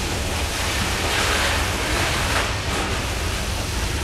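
Loaded coal hopper cars rolling past on a freight train: a steady rumble of wheels on rail mixed with the rushing hiss of the coal sprayer's water falling onto the cars, swelling slightly about a second and a half in.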